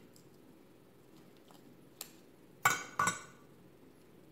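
Metal kitchen scissors set down against a glass baking dish: a light click about two seconds in, then two sharp clinks in quick succession.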